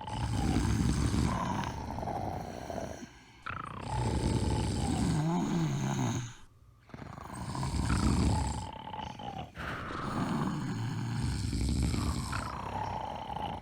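Snoring: long, low, rattling breaths repeating about every three seconds, each followed by a short pause.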